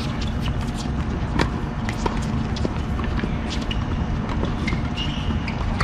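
Sharp, scattered taps of tennis balls bouncing and being struck with racket strings, over a steady low background rumble.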